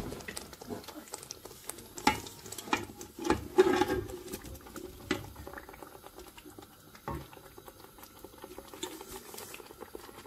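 Thick masala gravy bubbling in a pot as fried chicken pieces are added, with several sharp knocks of the pieces and a utensil against the pot.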